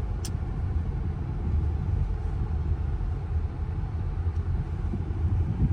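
Steady low rumble of a moving vehicle heard from inside the cabin, with a brief click just after the start.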